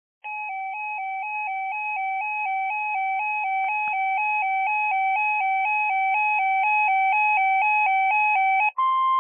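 Electronic emergency alert tone: a two-pitch warble that alternates several times a second and grows steadily louder, switching near the end to a single steady tone.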